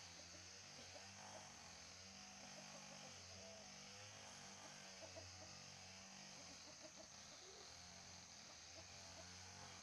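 Near silence: faint chickens clucking over a low hum and a steady high hiss.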